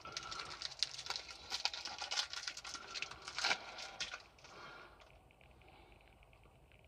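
Chocolate wrapper crinkling and tearing as it is pulled open by hand, a quick run of crackles that stops about four and a half seconds in.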